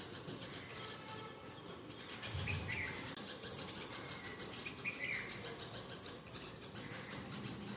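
A bird giving a short call about every two and a half seconds, over a steady, rapid insect chirring.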